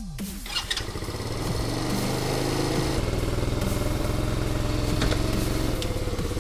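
The 125 cc petrol engine of a kids' quad bike running steadily, getting a little louder over the first couple of seconds, with a light click or two.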